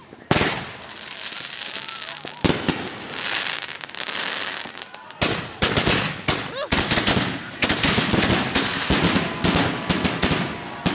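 Consumer fireworks going off: a fast run of sharp bangs over dense crackling, thickest in the second half.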